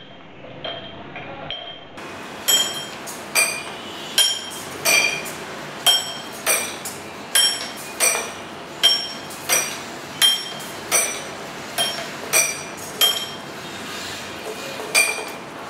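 A spinning bottle-and-tin-can drawing contraption with pens attached, clinking rhythmically as it whirls over paper. The sharp, ringing clinks come about once every 0.7 seconds, starting a couple of seconds in.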